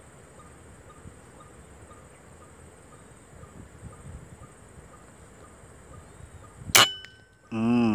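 A single sharp air-rifle shot about seven seconds in, with a short metallic ring after it, over a steady drone of insects.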